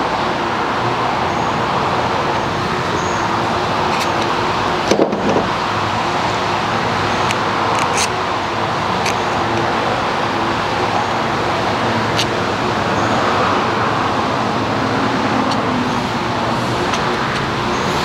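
A steady, loud mechanical drone like road traffic, with a faint hum in it. Over it come a few light, sharp clicks of small parts being handled as the carburetor is fitted.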